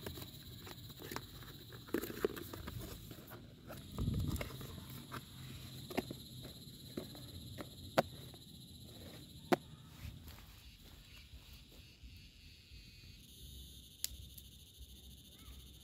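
Sharp plastic clicks and knocks of a small folding camp table being unfolded by hand and set down on the ground, with a duller thump about four seconds in. A faint steady insect hum runs underneath.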